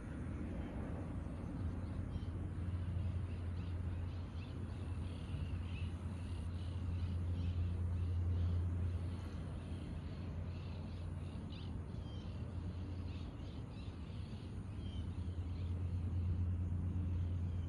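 Birds calling in many short chirps over a low, steady hum that swells for several seconds, fades about halfway through, and swells again near the end.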